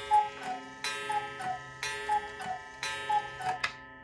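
The cuckoo of an R.Rogers Romance Black Forest cuckoo clock with a Swiss movement calling the hour: a two-note cuckoo, higher then lower, repeated about once a second, four times. Each call starts with a sharp click over lingering ringing tones, and a louder click comes near the end.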